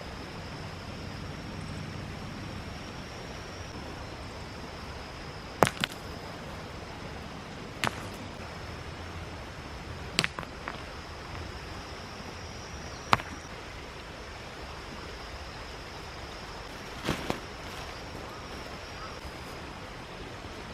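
Steady rush of a mountain stream with a faint high steady whine over it, broken by a handful of sharp knocks or clicks, some in quick pairs.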